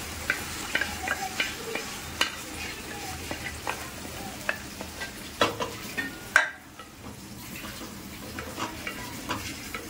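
Marinated chicken in a wet green masala being scraped with a wooden spatula from a steel bowl into hot oil and fried onions in a steel pot: a steady sizzle of frying with many short scraping clicks and knocks of the spatula on steel. A couple of louder knocks come just past the middle, and after them the sizzle is a little quieter.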